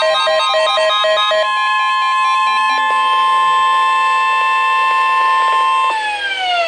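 Weather radio alert tone: a quick chirping pattern of short tones gives way, about a second and a half in, to a steady loud high-pitched tone. Near the end the main tone cuts off abruptly and the rest slides down in pitch.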